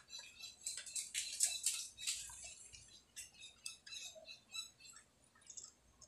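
Soldering a wire joint on a switch terminal: faint, irregular crackling and small ticks, thickest in the first couple of seconds and thinning out after.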